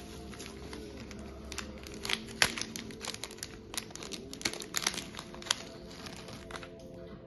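Bubble wrap and a small plastic jewellery pouch crinkling and crackling as they are unwrapped and handled. The crackles come in quick irregular runs and are busiest in the middle.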